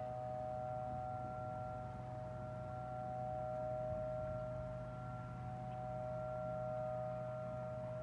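T-128 outdoor warning siren sounding a steady tone of two close notes, without rising or falling in pitch, its loudness swelling and fading gently every few seconds.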